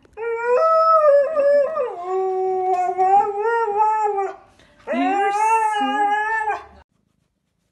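Siberian husky howling in two long, wavering howls, the first about four seconds long and the second about two, with a short break between them.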